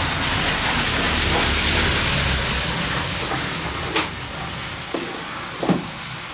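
Motorcycle engine running at idle after a first-kick start on a freshly charged battery: a steady low hum under a noisy hiss that eases after about three seconds. A couple of sharp knocks come near the end.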